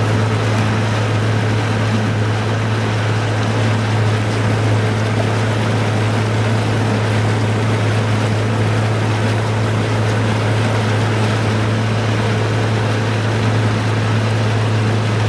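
Boat engine running steadily at speed with a constant low hum, under the rush of water spray along the hull and wind. It stops abruptly at the end.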